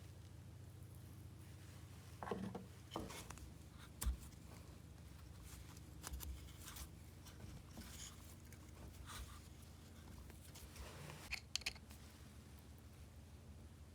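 Light, scattered clicks and scrapes of hand tools and small chainsaw parts being handled during disassembly, over a steady low hum.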